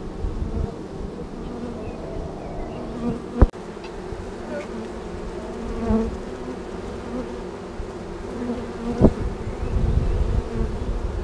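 Honeybee swarm buzzing close to the microphone as the bees crawl and fly into a straw skep: a dense, layered hum with several pitches. Two sharp knocks cut through it, a few seconds in and again near the end.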